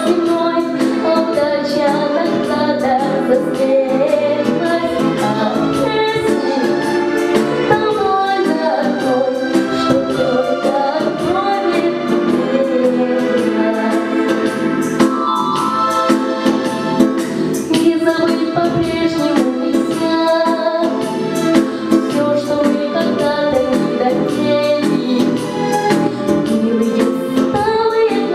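A young girl sings a slow song solo into a microphone over a recorded instrumental backing track with sustained chords.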